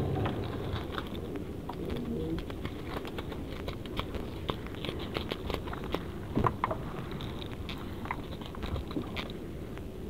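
Crackling and rustling of a nylon net and a plastic sheet as gloved hands work a lobster out of the net: many small irregular clicks over a low steady rumble.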